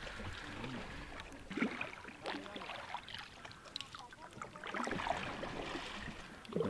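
A canoe being paddled on a river: paddles dipping and pulling through the water, with faint, irregular splashes and knocks.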